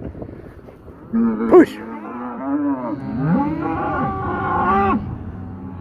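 Beef cow mooing in two long, drawn-out calls, the first from about a second in and the second from about three seconds in. A man's shouted herding command cuts in briefly over the first.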